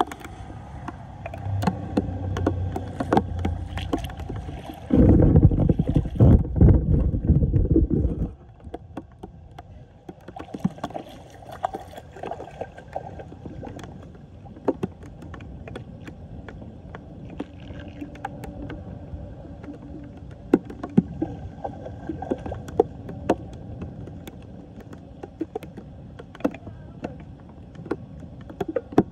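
Rain falling on a flooded street and floodwater swirling down a submerged storm drain, with many scattered sharp ticks and small splashes. About five seconds in, a loud low rumble lasts around three seconds and then stops suddenly.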